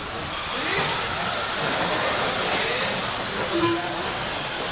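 Radio-controlled race trucks running on a dirt track: a steady hiss of motors and tyres, with brief whines rising and falling in pitch as they speed up and slow down.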